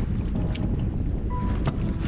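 Wind buffeting the microphone in a small boat on choppy water, a steady low rumble with water slapping against the hull.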